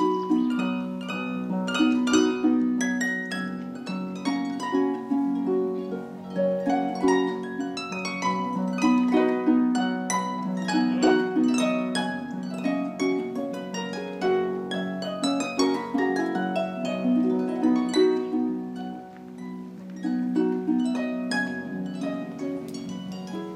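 Concert pedal harp played solo: a steady flow of plucked notes, with low notes ringing on beneath quicker higher ones, growing briefly quieter about three-quarters of the way through.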